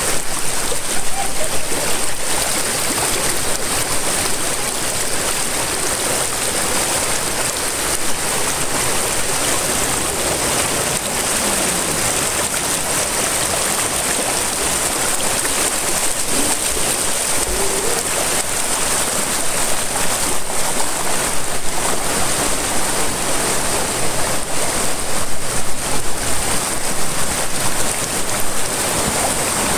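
River water rushing through shallow rapids and around tree roots: a steady, loud rush that swells a little in the last third.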